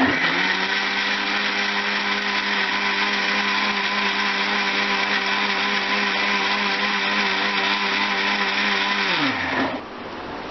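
Electric mixer-grinder (mixie) motor blending milk with bananas and dates in a steel jar. It starts abruptly, runs at a steady pitch for about nine seconds, then is switched off and winds down with a falling whine.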